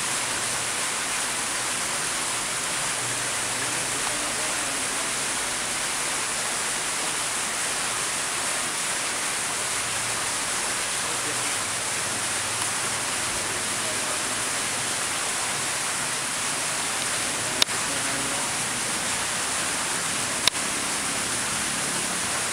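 Steady rush of water churning and splashing in a koi pond, from water welling up at the surface. Two short clicks near the end, about three seconds apart.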